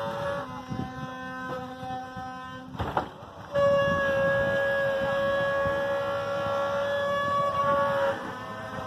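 Wooden ox cart axle singing: the wooden axle turning in its wooden bearing blocks gives a long, steady, whining tone with overtones. A fainter, lower whine comes first. There is a knock about three seconds in, then a loud whine that holds for about four and a half seconds before dropping off.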